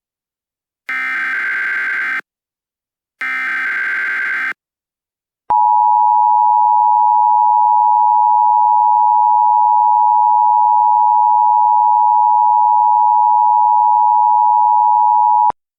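Emergency Alert System signal. It opens with two buzzy, warbling data bursts of the EAS header, each a little over a second long, followed about a second later by the two-tone attention signal: a loud, steady dual tone held for about ten seconds that cuts off sharply.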